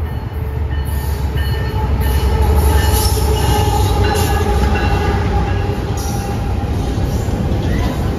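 Freight train led by a GE AC4400CW diesel-electric locomotive passing close by, its diesel engine rumbling deep and growing louder, then double-stack intermodal cars rolling past. Short high-pitched wheel squeals come and go over the rumble.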